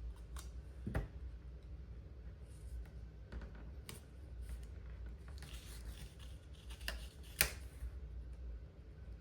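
Pen writing on the paper of a small planner, with the rustle of the pages being handled and a few sharp clicks, the loudest near the end.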